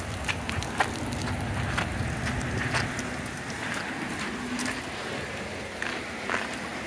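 Steady rain falling on wet pavement and the trailer, with scattered sharp drops striking close by.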